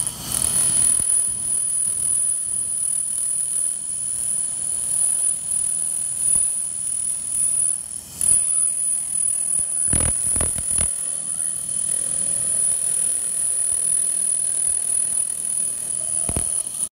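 Handheld laser cleaner ablating rust from a steel platen: a steady high-pitched whine over a hiss, breaking off briefly twice, just after the start and about eight seconds in. A few low knocks around ten seconds in and again near the end.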